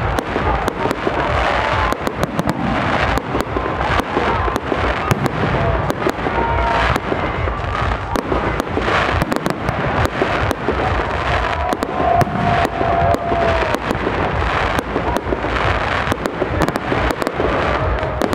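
Large-calibre aerial fireworks shells bursting in a dense, continuous barrage, many loud bangs in quick succession with crackling between them.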